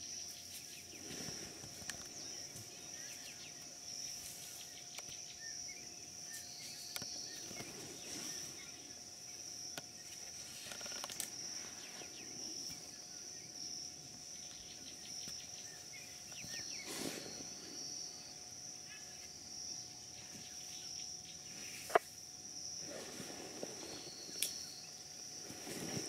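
A steady high-pitched insect chorus, with repeated scuffing and rustling as a baby black rhino moves and plays in sawdust. Two sharp clicks come near the end.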